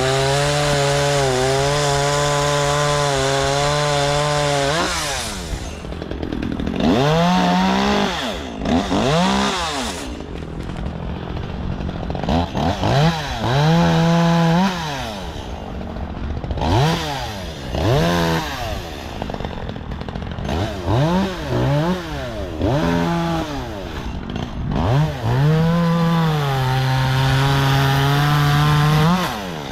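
Petrol chainsaw revved in short up-and-down bursts and held at high revs for several seconds twice, at the start and again near the end, as when cutting through thick stems.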